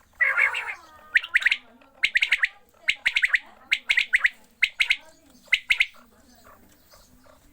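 A quail calling: six rapid groups of sharp, high notes, one group a little under every second. They follow a short harsh burst just before.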